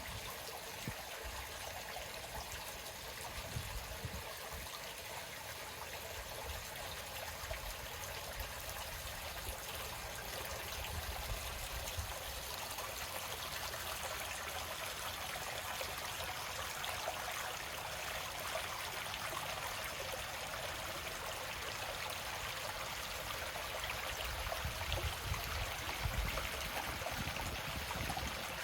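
Steady trickling and splashing of water at a lake's edge, slowly growing louder, with a few low thumps near the start and again near the end.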